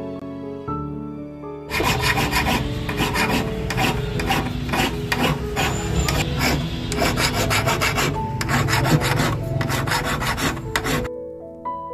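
Piano music, then from about two seconds in a flat hand file rasping over a small cast metal piece in quick, repeated back-and-forth strokes. The filing stops about a second before the end, and the piano music returns.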